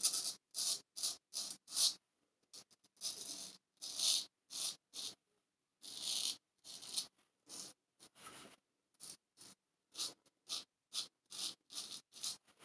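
Person Special Solingen straight razor scraping through lathered stubble on the jaw and neck in short strokes, about two a second, each a brief rasp, on the first pass of the shave.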